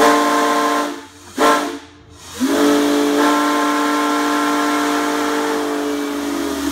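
Steam whistle of locomotive 2141, a 2-6-0 steam engine, blowing loud blasts of several tones together over hissing steam: a blast that stops about a second in, a short toot, then a long blast from about two and a half seconds on. Each blast slides up in pitch briefly as it opens.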